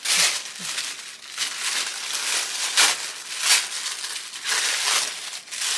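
Wrapping material rustling and crinkling in irregular surges as a gift-wrapped package is unwrapped by hand.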